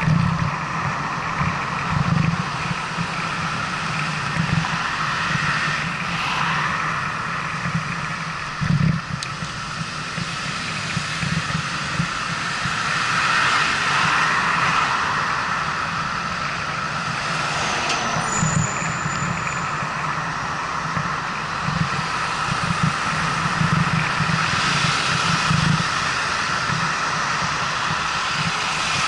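Traffic noise heard from a moving bicycle: cars passing close by, swelling about halfway through and again near the end. Irregular low thumps, typical of wind on the microphone, run throughout, and there is a brief high squeal about two-thirds of the way in.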